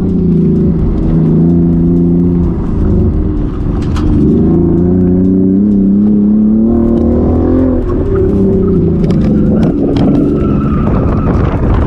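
Chevrolet Camaro V6, heard from inside the cabin, pulled hard and lifted in turn through an autocross run, its engine pitch climbing and dropping several times; the car runs loud. Near the end the tyres squeal briefly in a turn.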